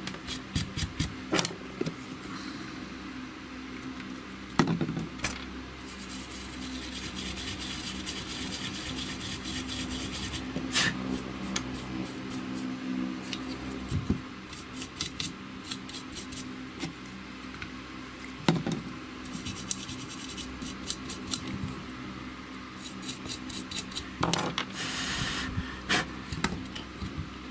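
A small hand tool scratching and rubbing on a printed circuit board, in short strokes and longer runs of scraping, with scattered light clicks and knocks from handling the board, over a low steady hum.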